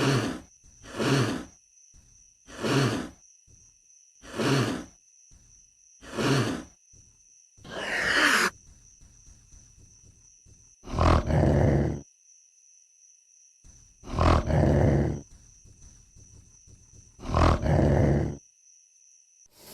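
Velociraptor sound effects: five short shrieking cries about every one and a half to two seconds, then a longer call falling in pitch, then three louder, deeper roars about a second long, a few seconds apart. A faint steady high whine runs underneath.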